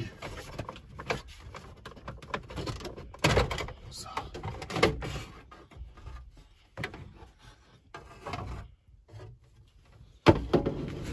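Plastic dashboard trim of a VW T3 bus being handled and pressed by hand: scattered clicks, knocks and rubbing, with a sharp knock about ten seconds in.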